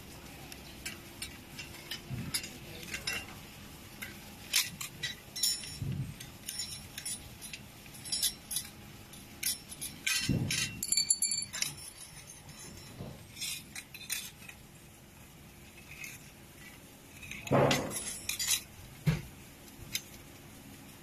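Scattered light metallic clinks and clicks as the thin sheet-metal pieces of an airplane wind spinner are handled and fitted together, with a few dull bumps.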